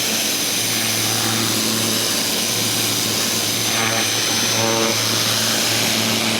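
Ryobi 2000 PSI electric pressure washer running, its motor humming steadily under the hiss of the high-pressure water jet blasting grime off concrete.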